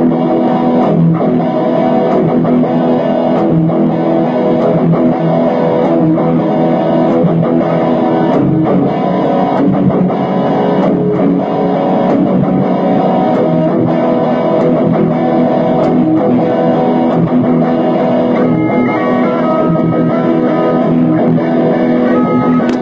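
Epiphone acoustic guitar played continuously, with picked notes ringing on over one another.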